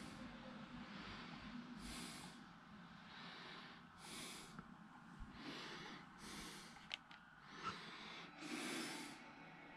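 Faint breathing close to the microphone, a soft breath about every two seconds, with two sharp clicks about seven seconds in and just before eight.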